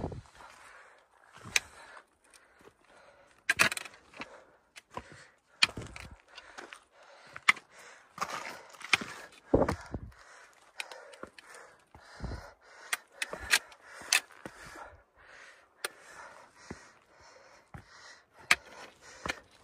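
Footsteps of a hiker walking on a rocky mountain trail: boots scuffing and crunching on stones, with irregular sharp clicks and knocks and a heavier thump every couple of seconds.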